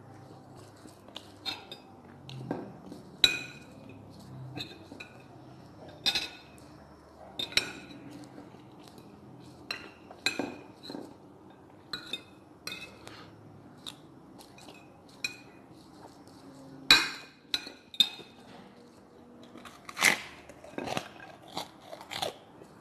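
Metal fork and spoon clinking and scraping on a ceramic plate as the last chicken and rice are picked apart and gathered: irregular sharp clinks, a few louder ones in the last third.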